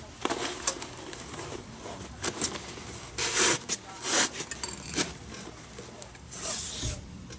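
Green leather lace being pulled through the lace holes of a Rawlings Pro Preferred glove during a fingertip relace: a series of short rasping pulls of lace against leather, with a brief high squeak about halfway through.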